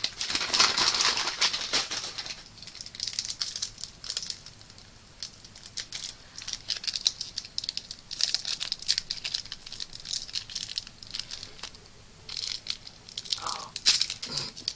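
Plastic KitKat wrapper crinkling and tearing as it is opened, in repeated bursts of crackling that are densest in the first two seconds.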